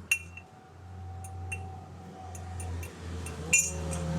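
Hand tools clinking on metal during shock absorber work: a sharp metallic clink right at the start and a louder one about three and a half seconds in, each with a brief ring, with lighter ticks between. A steady low hum runs underneath.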